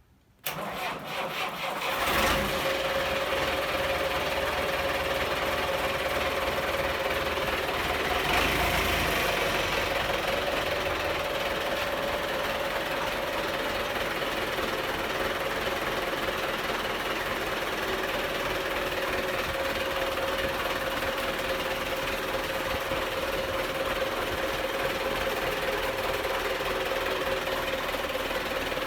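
Diesel engine of a Belarus MTZ 820 tractor, a four-cylinder diesel, running steadily with an even, rapid rhythm. It comes in suddenly about half a second in, gets louder about two seconds in, and swells briefly at around eight seconds.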